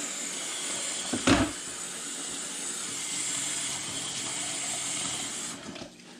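Kitchen tap running into a bowl in the sink, a steady splashing hiss that shuts off near the end, with one sharp knock about a second in.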